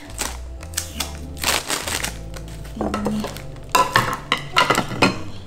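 Plastic wrap crinkling as it is pulled off a black glazed earthenware Korean stew pot (ttukbaegi), then a few sharp knocks about four seconds in as the pot is handled and set down on its base. Soft background music plays underneath.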